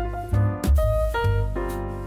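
Background music: keyboard notes over a deep bass line, with a few drum hits.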